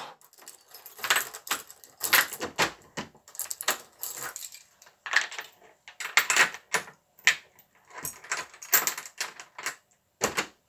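A bunch of keys jangling and clicking in a door lock as the door is locked, an irregular run of short rattles and clicks.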